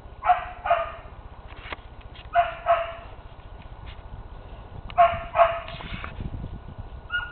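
A puppy's high-pitched play barks, given in three quick pairs about two and a half seconds apart, while the puppies wrestle in the grass.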